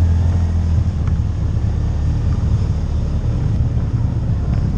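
CFMOTO CForce ATV engine running steadily under way, a low drone that is a little stronger for about the first second.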